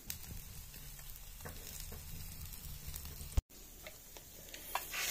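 Steady faint crackling hiss over a low hum, with a few light ticks. About three and a half seconds in there is a sharp click, then the sound drops out for a split second.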